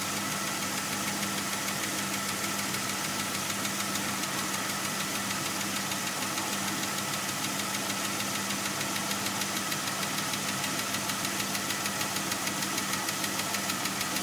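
Jeep Grand Cherokee WJ's 4.0-litre straight-six idling with a fast, even ticking from the engine, which the owner suspects is lifter tick. The ticking grows more pronounced near the end.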